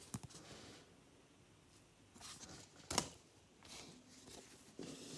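Trading cards being handled: soft faint rustles and slides of card stock and plastic sleeves, with one sharp tap about three seconds in.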